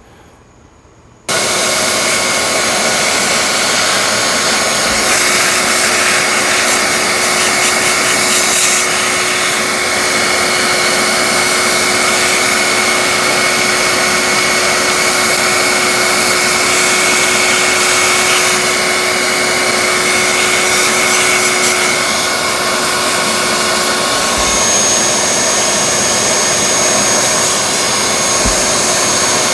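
Vacuum cleaner switched on about a second in and running steadily with a high whine, sucking dust out of the holes in the deck boards.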